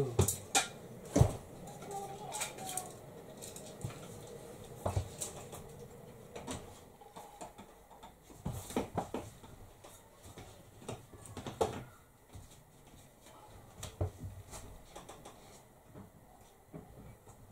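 Scattered clicks and light knocks as a roller blind is handled and clipped into its brackets above a window, with a louder knock about a second in.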